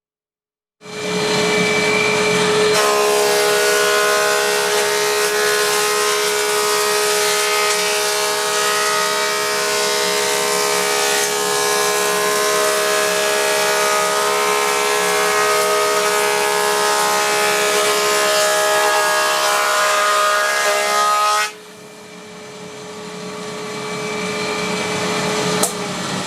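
Woodworking planer thicknesser running with a steady whine, then cutting timber with a loud, dense rasping noise for about 19 seconds as a board is fed through. The cutting stops about 21 seconds in, leaving the machine running more quietly, with a sharp click near the end.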